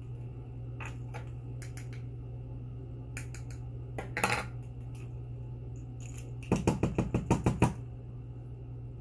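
Small plastic clicks and taps from an AirPods charging case being handled in a newly fitted protective cover. There are a few scattered single clicks, a short cluster about four seconds in, then a quick run of about ten taps near the end, the loudest part, all over a steady low hum.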